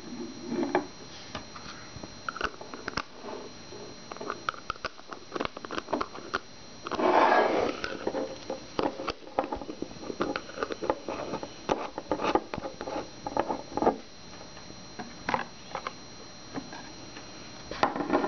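Objects being handled and set down on a wooden tabletop: scattered light taps, clicks and knocks, with a louder rustle about seven seconds in that lasts about a second.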